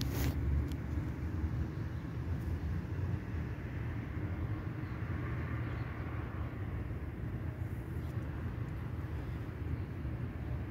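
Steady low outdoor background rumble, with a single sharp click right at the start.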